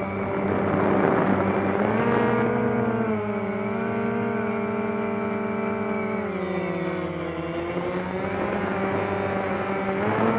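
DJI Phantom quadcopter's electric motors and propellers whining, heard from the camera on the drone; the pitch rises about two seconds in, drops again past the middle and climbs once more near the end as the motors speed up and slow down in flight.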